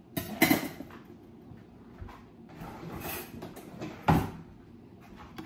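Kitchen drawer being opened and shut, with a sharp wooden knock about four seconds in. Lighter knocks and clatter come near the start.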